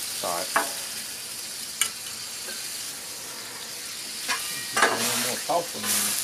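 Venison and au jus sizzling steadily on a Blackstone flat-top griddle, with a sharp click about two seconds in. Near the end it grows louder as a spatula scrapes under a cheese-topped stack on the steel.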